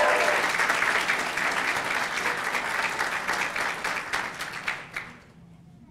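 Audience applauding, with a whoop of cheering at the start; the clapping fades out about five seconds in.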